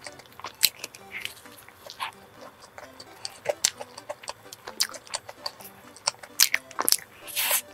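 Close-up wet chewing of a custard-cream-filled Hong Kong egg waffle: a string of sharp mouth clicks and lip smacks, with a longer hissing sound near the end.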